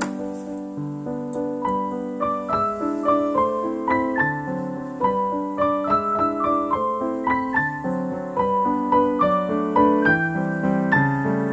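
Background piano music: a brisk run of single notes over lower held notes.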